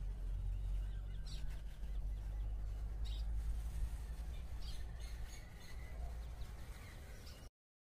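Outdoor ambience: small birds chirping in short calls several times over a steady low rumble. The sound cuts off abruptly near the end.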